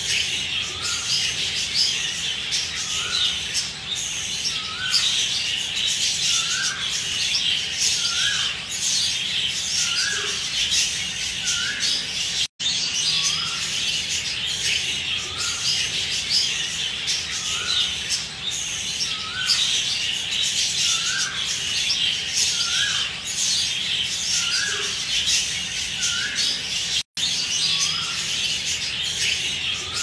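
Many small cage birds chirping and chattering continuously, with a short rising call repeating about once a second. Two brief dropouts where the recording starts over.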